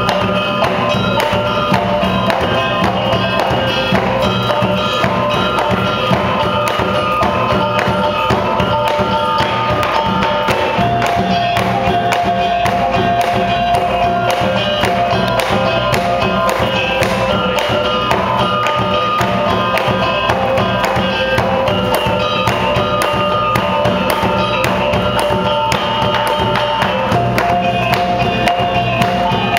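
Traditional Minangkabau plate-dance music: a held, shifting melody over steady percussion, with fast, even clinking of the dancers' rings tapped against the plates in their hands.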